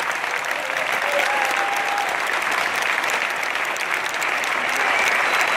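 A large audience applauding steadily, a dense mass of clapping that swells a little near the end.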